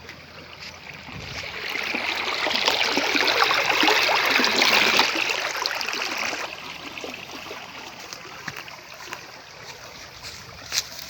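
Water rushing and splashing in a strong flow that builds up about a second in, is loudest in the middle, and eases off to a gentler flow after about six seconds.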